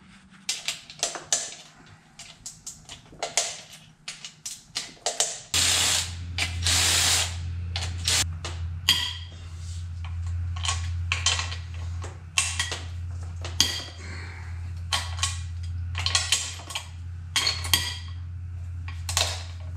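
Hand tools working on a Suzuki SV650 engine: ratchet clicks and clinks and knocks of metal parts in quick irregular strokes. A hiss lasting about a second comes near the six-second mark, and a steady low hum starts suddenly about a third of the way in and stays under the clicking.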